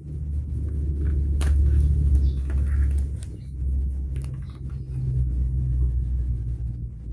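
A steady low rumble with a few sharp crinkles and clicks of plastic shrink-wrap on a vinyl record sleeve, the loudest about one and a half seconds in.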